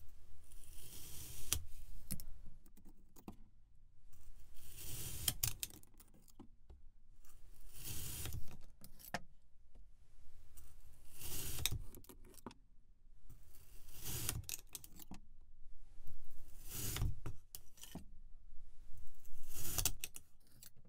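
Knife blade cutting through packed kinetic sand in a glass container, a gritty crunching hiss with each slice. It repeats about seven times, a second or two each, with short pauses between.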